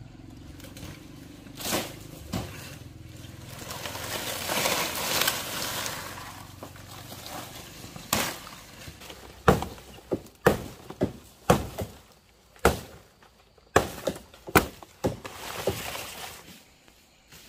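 A stretch of scraping, rustling noise, then more than a dozen sharp knocks and strikes at an irregular pace, with the loudest in the middle of the run.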